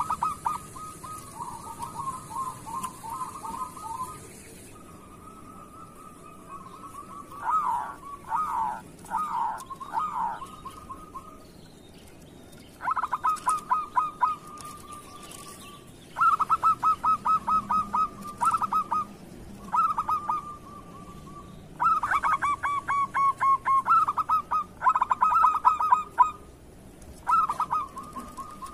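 Local zebra doves (perkutut) calling: repeated bouts of quick staccato cooing notes, about five runs in the second half, with softer, longer coos between them.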